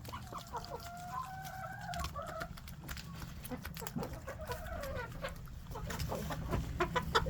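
Chickens clucking, with wavering calls coming mostly in the first couple of seconds and again midway, over many small sharp taps and clicks.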